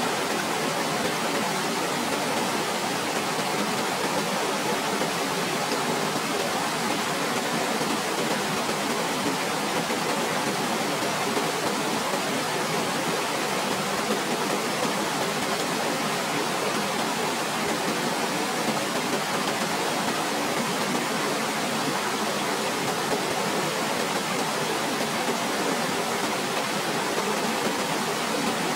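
Waterfall: a steady, even rush of falling water that does not change in level, with little deep rumble.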